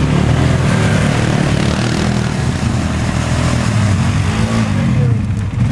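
Quad (ATV) engine revving up and down in repeated surges, trying to drive out of deep mud with its rear bogged down and sucked in while riders lift it.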